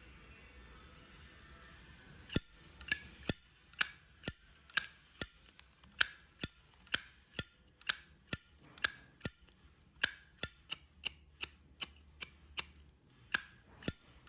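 Lid of a 1987 Zippo lighter repeatedly flicked open and snapped shut. Sharp metallic clicks come about twice a second, starting a couple of seconds in.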